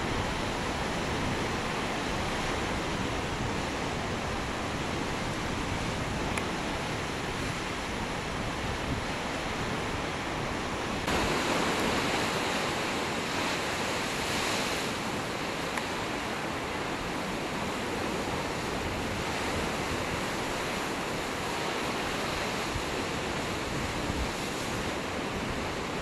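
Sea surf breaking and churning against rocks at the foot of cliffs, a continuous rush of foaming water that grows louder about eleven seconds in.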